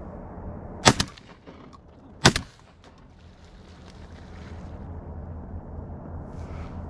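Two loud shotgun shots about a second and a half apart, fired at ducks.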